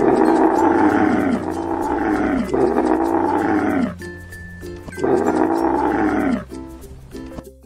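Camel calling three times, long rough bellows that each fall in pitch, over light background music.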